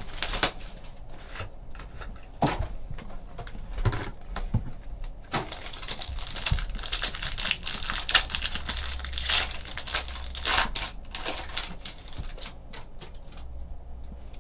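Plastic shrink wrap being torn off a sealed trading-card box and crumpled, followed by trading cards being pulled out and handled. The sound is an irregular run of crinkles, rustles and sharp clicks.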